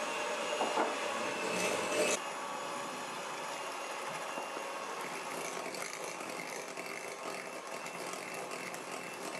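Hand-held electric mixer running steadily, its beaters whisking butter, sugar and eggs in a glass bowl. The sound drops a little about two seconds in.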